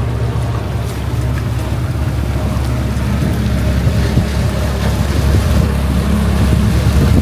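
A boat's engine running steadily under way, a low even hum with the rush of water and wind, slightly louder towards the end.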